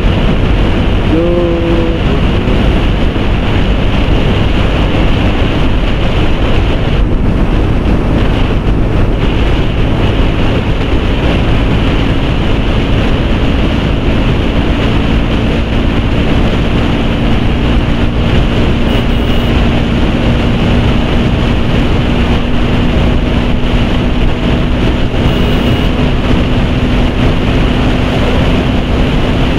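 Wind rushing over the microphone of a motorcycle riding at steady highway speed, with the Bajaj Pulsar NS200's single-cylinder engine running steadily underneath. A brief, short tone sounds about a second and a half in.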